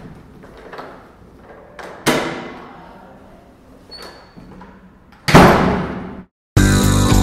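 Two heavy slam-like impacts, each dying away over about a second. The second one, near the end, is louder and is cut off abruptly, and band music with guitar and bass starts right after.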